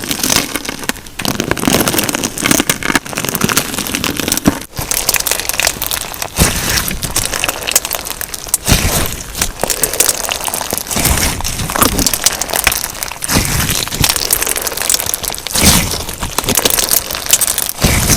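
Crunchy slime filled with sequins and glitter being squeezed and kneaded by hand, making dense crackling and crunching with louder swells every second or two.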